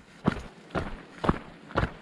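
Footsteps of a person walking on a dirt trail: four steps at an even pace of about two a second.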